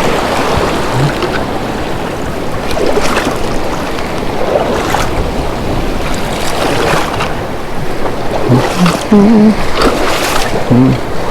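Ocean surf washing on the shore: a steady rushing noise that swells every second or two, with some wind on the microphone.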